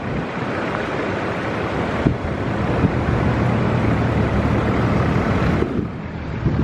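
Four-wheel-drive vehicle driving, a steady engine and tyre noise with a low hum, changing abruptly about two seconds in and again near the end.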